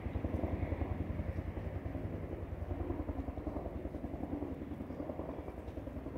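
Distant Bell 205A-1 helicopter in flight, its two-blade main rotor giving a steady, rapid pulsing beat.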